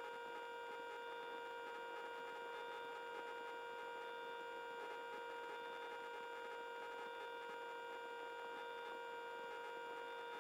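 Steady electrical hum made of several even tones in the helicopter's intercom audio feed, unchanging throughout.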